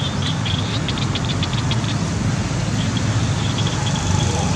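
A steady low rumble like an engine running nearby, with a rapid high ticking over it.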